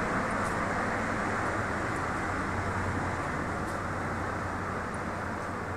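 DR1A diesel multiple unit standing at the platform with its diesel engine running steadily, a continuous low hum.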